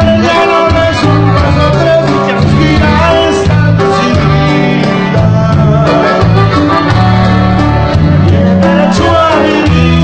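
Live norteño band playing through PA speakers: held accordion notes over guitar and a bass guitar line.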